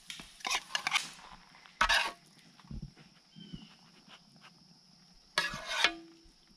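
A long metal spatula scraping and scooping across a quarter-inch-thick steel Fire Disc cooker in several short strokes, the longest and loudest near the end, with a brief ringing note after it.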